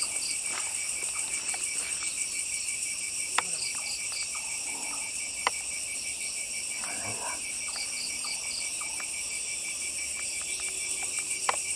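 A night chorus of crickets and other insects, trilling and pulsing steadily at a high pitch. A few sharp clicks, the loudest about a third and halfway through and another near the end, and a soft rustle sound over it.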